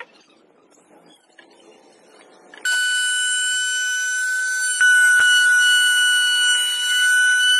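Table-mounted router switched on about a third of the way in, its motor running at full speed with a loud, steady high-pitched whine. Before it starts there are only faint knocks of wood being handled on the table.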